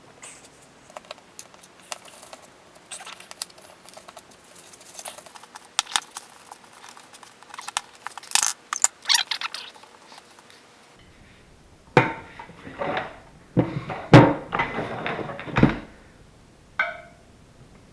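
Metal hand tools clinking, scraping and knocking against fat-bike hub parts: a run of light clicks and scrapes, then louder knocks and clanks from about eleven seconds in.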